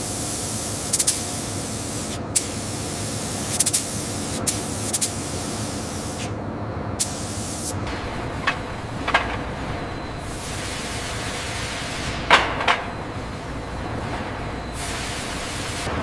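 Steady spraying hiss from a spray gun coating enamel, with a low hum underneath. Sharp clicks and knocks come every second or two, the loudest about two-thirds of the way in.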